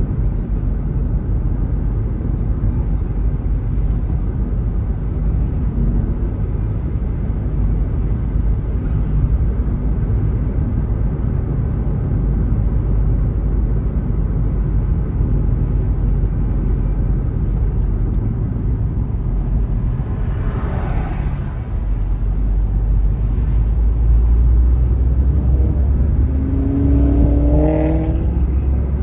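Road noise heard from inside a moving car: a steady low rumble of tyres and engine. A brief whoosh comes about two-thirds of the way through, and an engine note rises near the end.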